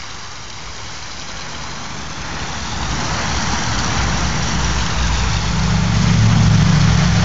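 Small garden pond waterfall splashing steadily, with a low engine hum that grows louder from a few seconds in and is loudest near the end.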